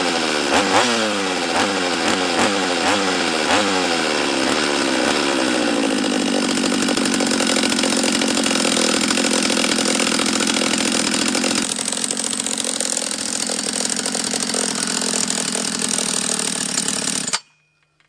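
Rebuilt Husqvarna 44 two-stroke chainsaw engine running on its first heat cycle after the rebuild. It is revved up and down about once a second, then held at a steady pitch, and it cuts out abruptly near the end.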